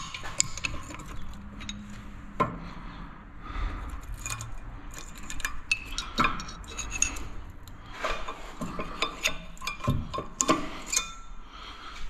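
Metal hand tools and parts clinking and scraping as a car's brake and wheel hub are worked on: a string of irregular light clicks and knocks.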